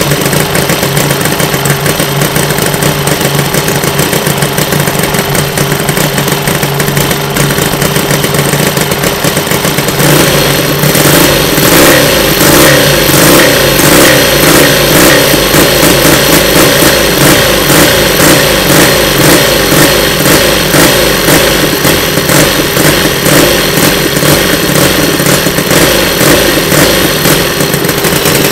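Miniature V-twin model engine idling steadily. About ten seconds in it gets louder as the throttle is worked by hand, revving up and dropping back again and again, responding quickly to the throttle.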